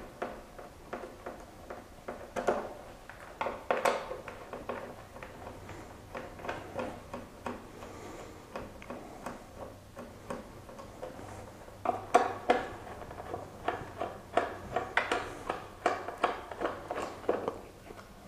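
Light clicks, taps and scrapes of a screwdriver working fasteners out of a motorcycle's plastic tail fairing. A denser run of quick clicks comes from about twelve to seventeen seconds in.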